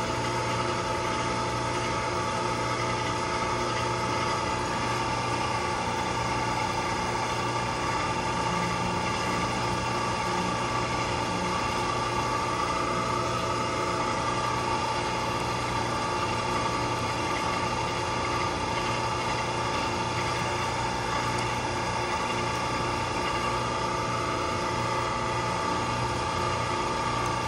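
Steady machinery hum with several steady tones layered over it, holding an even level throughout.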